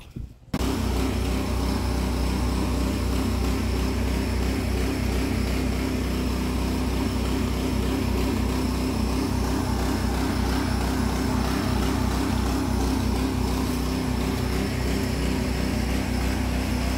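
Small petrol engine running steadily at one constant speed, cutting in abruptly about half a second in.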